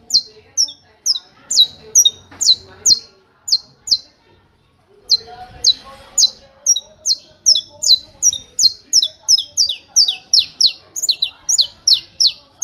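Saffron finch (canário-da-terra) singing its 'martelo' (hammer) song: a fast run of sharp, high, down-slurred notes, about three a second. The run breaks off for about a second around four seconds in, then resumes and speeds up toward the end.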